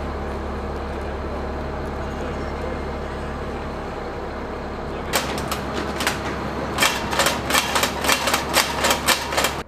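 A Stryker's engine runs with a steady low hum. About five seconds in, its remote-mounted weapon opens fire: a few scattered shots, then a rapid string of about four shots a second that cuts off suddenly.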